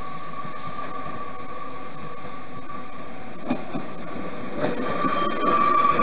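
Nankai 2000 series electric train rounding a curve, its wheels squealing with a steady high tone over the running noise. It grows louder about five seconds in as the cars pass close.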